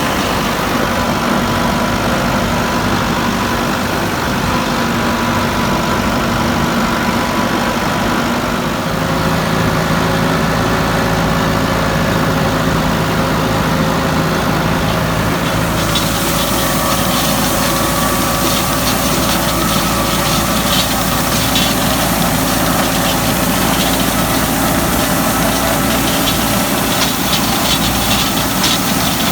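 Farm tractor engine running steadily while working a hay field. The engine note shifts about a third of the way in, and a rattling hiss joins it about halfway through.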